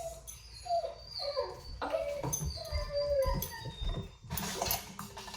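Puppy whining: a string of short, high whimpers, each falling in pitch.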